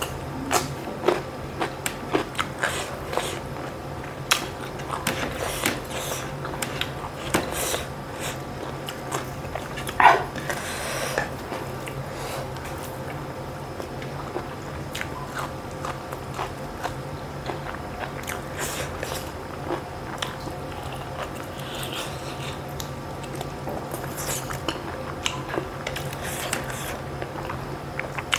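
A person chewing and biting food eaten by hand, close to the microphone, with many small wet mouth clicks and crackles. There is one louder sharp crunch or knock about ten seconds in, over a faint steady hum.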